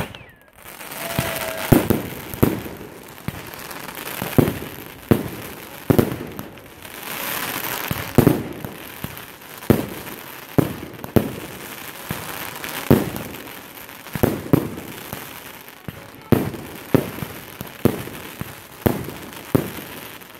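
Aerial fireworks display: shells and comets bursting with sharp bangs about once a second, at irregular spacing. Between the bangs there is a steady hiss and crackle from rising comets and glittering stars.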